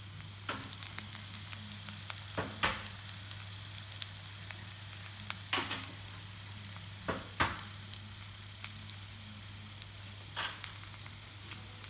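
Potato slices frying in olive oil in a cast-iron skillet: a steady sizzle, broken by about five short, sharp pops.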